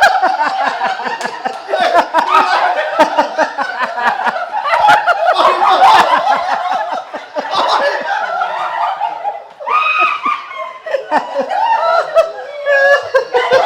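Several people laughing loudly together, with overlapping voices mixed in and a brief lull about nine and a half seconds in.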